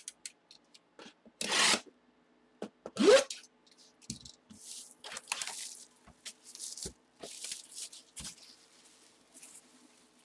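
Hands handling and turning a cardboard trading-card box: a series of short rubbing and scraping noises, the two loudest within the first few seconds.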